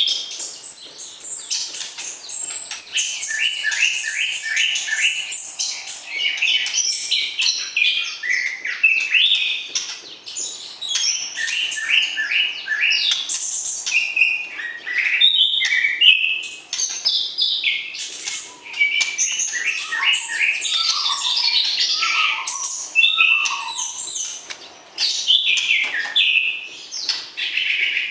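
White-rumped shama singing continuously: a rich, varied string of quick whistled and chattering phrases with hardly a break, dropping to a few lower, falling notes past the middle.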